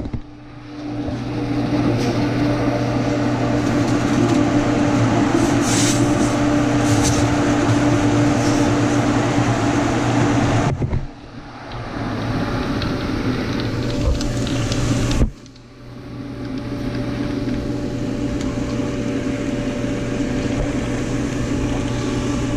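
A 1 HP pool pump's electric motor running while it primes, a steady hum over the rush of water and air through the pump. The sound drops away sharply twice, about 11 and 15 seconds in, and builds back up each time.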